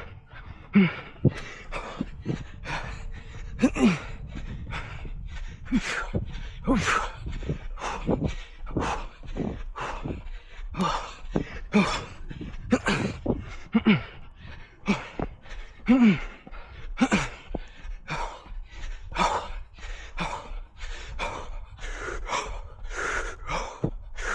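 A runner breathing hard near the end of a 5 km run: rapid, even panting, a little under two breaths a second, many of them voiced gasps that fall in pitch.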